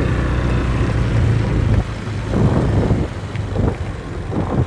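Honda motor scooter engine running while riding, with wind buffeting the microphone. The engine gets quieter about two seconds in.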